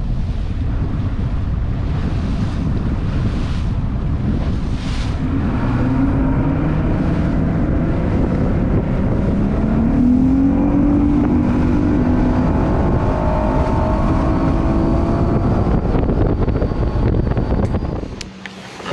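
Bass boat's outboard motor running at speed, with heavy wind buffeting the microphone; the engine's pitch climbs steadily from about six seconds in, and the sound cuts off suddenly near the end.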